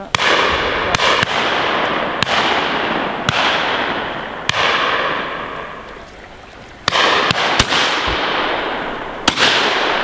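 Shotgun shots fired along a line of guns at high driven birds: about a dozen sharp cracks, some in quick pairs, each rolling away in a long echo off the wooded bank, with a short lull in the middle.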